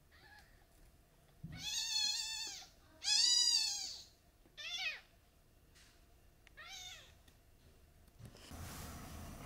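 A three-day-old kitten mewing: four thin, high cries, each rising and then falling in pitch. The first two are long, the second is the loudest, and the last two are short. A soft steady hiss comes in near the end.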